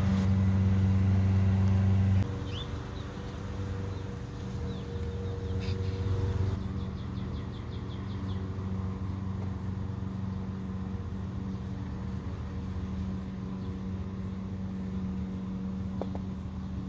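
A steady low mechanical hum, loud for about the first two seconds, then dropping suddenly to a softer hum that carries on.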